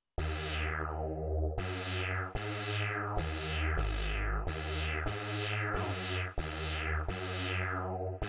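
Mini-G3 software synthesizer playing a preset: a run of notes with a deep bass, a new one about every three-quarters of a second, each starting bright and quickly turning duller.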